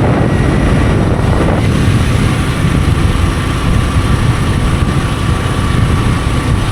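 Steady wind and road rush on an action camera's built-in microphone while riding a Hero Super Splendor motorcycle, its 125cc single-cylinder engine running evenly underneath.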